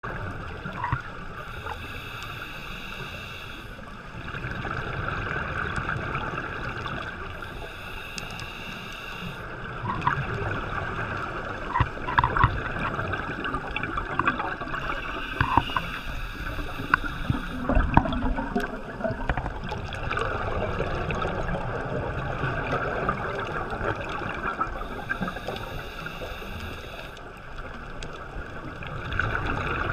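Scuba diving heard through a GoPro's waterproof housing: a steady muffled underwater rush with four breaths through a regulator, each a hiss of about two seconds, several seconds apart, and bubbling and small clicks between them.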